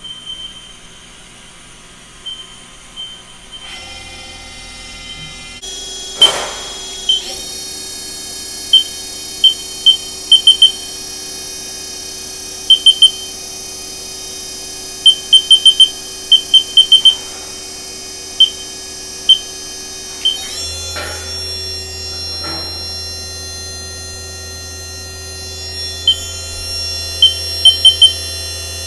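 Haas EC-400 horizontal machining center running, its spindle and drives giving a steady high whine that shifts in steps several times as the speed changes. Over it come short, sharp high beeps from the control, singly and in quick runs of two to four.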